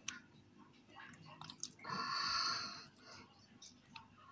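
Quiet wet squelching and dripping as raw chicken pieces are worked into a thick egg-and-milk batter in a glass bowl, with scattered light clicks. A brief, louder noisy sound comes about two seconds in.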